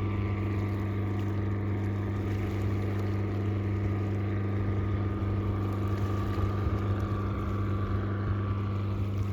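Boat engine running steadily, a constant low drone that drowns out the sound of the waves.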